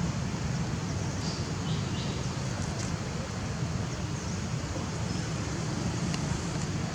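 Steady outdoor background noise, low and even throughout, with a few faint short high chirps about a second or two in.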